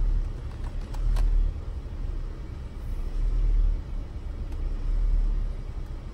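Low, uneven rumble of a car on the move, heard from inside the cabin, swelling and easing every second or two, with a few faint clicks.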